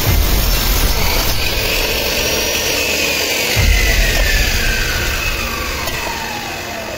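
Compound miter saw cutting through an aluminium profile, then its blade winding down, the whine falling steadily in pitch over the last few seconds. Two deep thuds come at the start and about three and a half seconds in.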